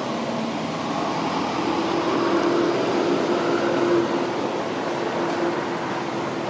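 A motor running with a steady low hum, swelling a little in the middle and easing near the end.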